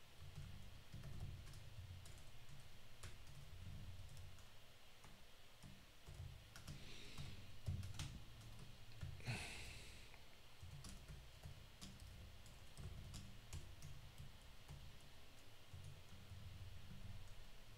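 Faint typing on a computer keyboard: scattered single key clicks over a steady low hum, with a short hiss about nine seconds in.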